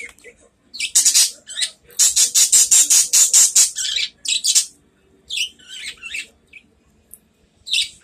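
Pet budgerigars calling with harsh, high chirps and squawks, including a fast run of squawks lasting about two seconds.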